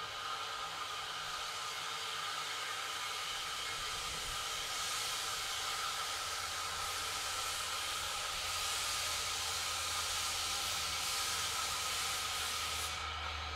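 Narrow-gauge steam locomotive hissing steam while standing with its train. The hiss grows louder about five seconds in and cuts off suddenly near the end, with a low rumble coming up beneath it in the second half.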